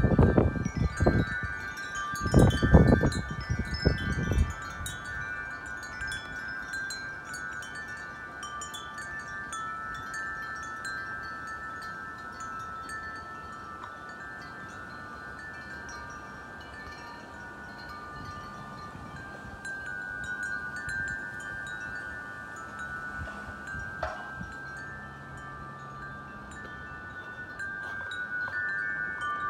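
Wind chimes ringing in the wind, several tones struck over and over and overlapping as they sustain. For the first few seconds loud gusts of wind rumble on the microphone.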